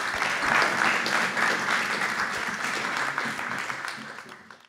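Audience applauding, a dense patter of many hands clapping that thins out in the last second and then cuts off.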